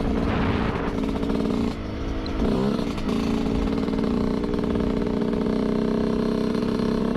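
Yamaha YZ125 single-cylinder two-stroke dirt bike engine running at steady revs while being ridden. The revs dip briefly about two seconds in, then pick back up and hold.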